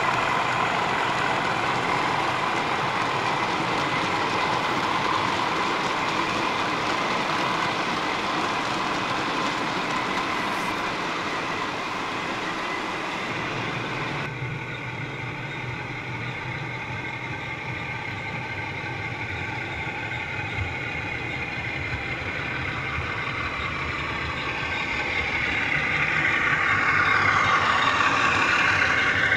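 OO gauge model trains running on the layout: the wheels of a passing rake of wagons rumble and clatter over the track. The sound drops and changes about halfway through, then grows louder near the end as a locomotive and hopper wagons pass close by.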